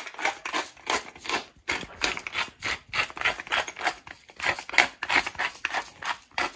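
Hand pepper mill twisted back and forth, grinding peppercorns in a quick run of short rasping crunches, several a second.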